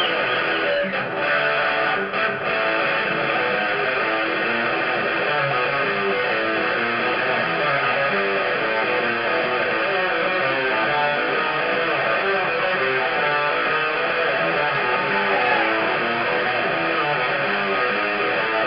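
Rock music led by a live electric guitar, played without a break.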